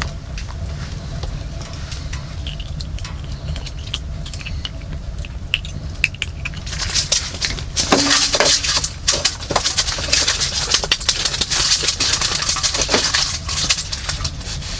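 A steady low hum, joined about halfway through by a dense clatter of small clicks and rustles, like things being handled.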